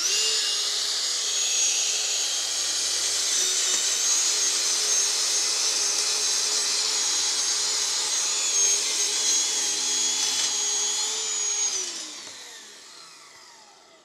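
Festool TSC 55 cordless plunge track saw, powered by two 18-volt batteries, running at speed with a steady whine as it cuts along a guide rail through a door. About twelve seconds in it stops cutting and winds down, its pitch falling as it fades.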